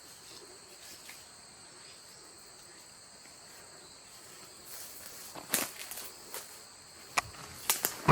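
Crickets and other autumn insects chirring steadily in high-pitched bands. From about halfway through come rustling and a few sharp crackles, as of steps or hands in dry leaves and chestnut burs, the loudest near the end.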